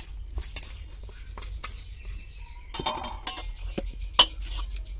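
Spatula scraping and clinking against a metal wok and a steel bowl as roasted semolina and coconut are scraped out, with sharp metallic knocks, the loudest right at the start and about four seconds in.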